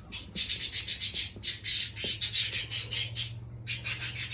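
Indian ringneck parrot squawking in a fast, even series of harsh repeated calls, about five a second, pausing briefly near the end before starting again.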